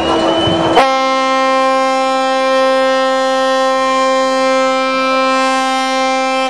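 A ship's horn sounding one long, steady, unwavering blast. It begins with a sharp click under a second in.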